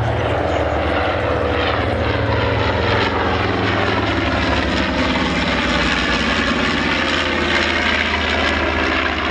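North American B-25 Mitchell bomber flying past with its two Wright R-2600 14-cylinder radial engines running, a loud steady drone whose pitch sinks as it passes.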